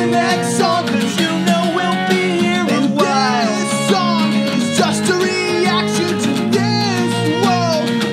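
Acoustic band playing live: a steel-string acoustic guitar strummed steadily, with a bowed violin melody and a bass guitar underneath.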